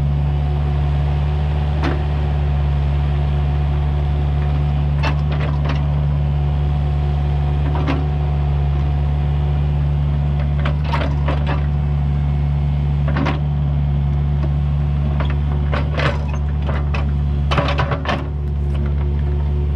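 Kubota U55-4 mini excavator's diesel engine running steadily under load, with scattered short knocks and clanks from the machine working the dirt.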